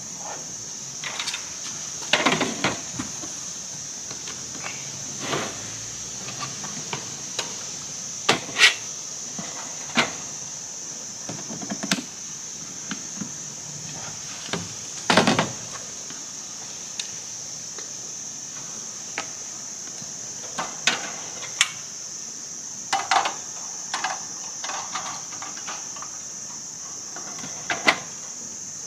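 Steady high-pitched chirring of insects. Scattered short knocks and clicks sound over it, the loudest about two, nine and fifteen seconds in.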